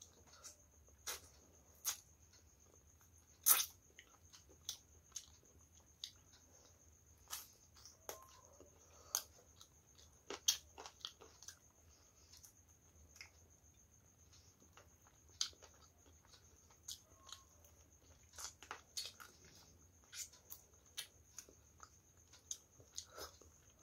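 Close-miked eating by hand of chicken liver and gizzard curry with rice: chewing with irregular sharp wet mouth clicks and smacks, one to three a second. A faint steady high whine runs underneath.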